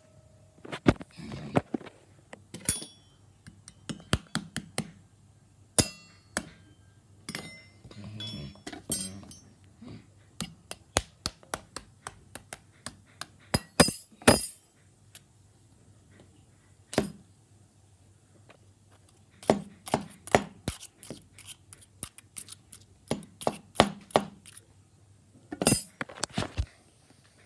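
Metal cutlery, a kitchen knife and spoons, tapping and knocking against an egg and the hard surface under its paper towel: many sharp clinks in irregular runs, the egg's shell cracking open.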